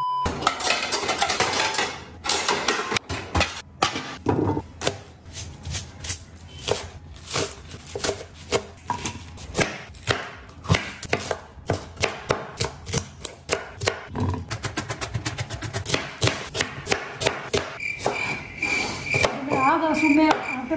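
Kitchen knife chopping a green bell pepper on a wooden cutting board: a long run of quick, even chops. A short steady test tone sounds at the very start, and near the end a high beep repeats several times.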